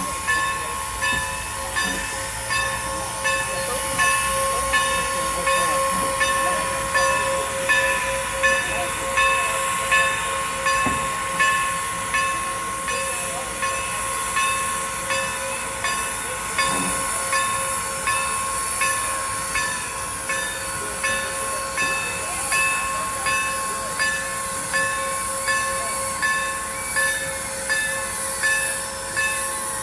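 Former Norfolk and Western 475 steam locomotive with its bell ringing steadily, about one and a half strikes a second, over a hiss of steam.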